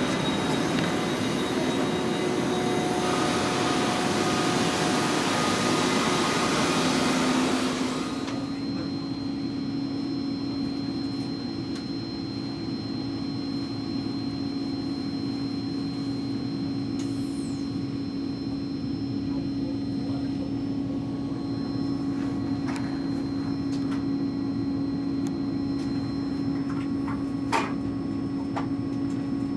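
Stationary ICE3 high-speed train: loud, even rushing from its fans and equipment on the platform, which drops away abruptly about eight seconds in as the sound is heard from inside the passenger car. The cabin then holds a steady low hum with a faint high whine from the train's ventilation and electrics, and a few small clicks near the end.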